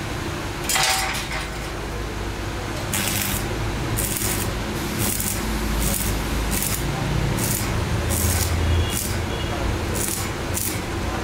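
Stick (arc) welding of a square steel tube frame to a steel plate: the electrode's arc crackling and hissing in a string of short bursts from about three seconds in, over a low steady workshop hum.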